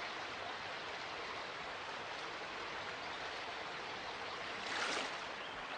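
Stream water rushing steadily over rocks in small rapids, briefly louder about five seconds in.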